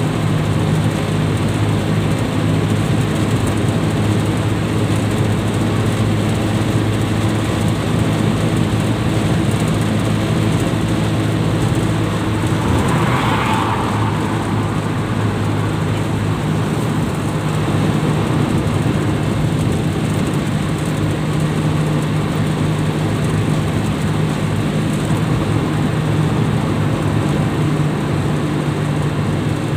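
Steady engine hum and road noise heard from inside a van's cabin while cruising on a highway. About thirteen seconds in there is a brief louder rushing sound.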